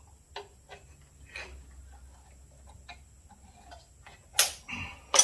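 Light clicks and taps of small metal chainsaw parts being handled and adjusted, with two sharper clacks near the end.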